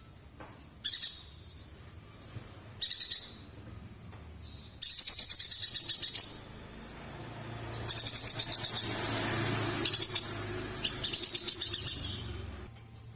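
A yuhina (cucak jenggot mini) singing in five loud, high-pitched bursts of rapid notes, the nembak style. The bursts fall about a second in, near three seconds, from about five to six seconds, around eight to nine, and around eleven to twelve, with softer thin notes between them.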